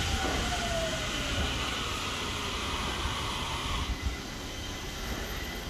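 Toyo Rapid Railway 2000 series electric train braking alongside the platform: its motor whine falls in pitch over a steady rumble and hiss. The noise drops away about four seconds in with a short clunk as the train comes to a stop.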